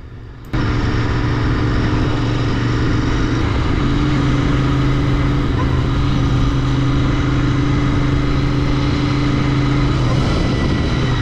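Royal Enfield Interceptor 650's 648 cc parallel-twin engine running steadily under way, heard from the rider's seat with wind and road noise. It cuts in abruptly about half a second in, and its pitch steps up slightly about three and a half seconds in.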